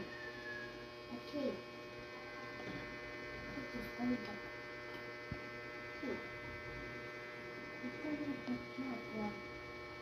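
A steady electrical hum made of several even tones, with faint short pitched sounds coming and going over it.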